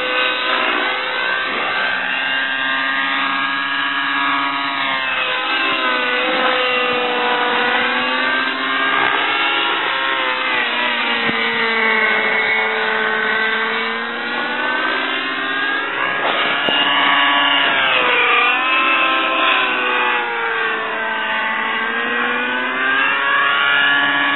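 Align T-Rex 600 nitro RC helicopter in flight: its nitro engine and rotor whine steadily, the pitch sweeping down and back up several times as the helicopter manoeuvres and passes.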